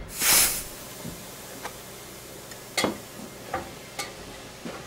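A brief hiss in the first half-second, then five or six scattered light clicks and taps from objects being handled.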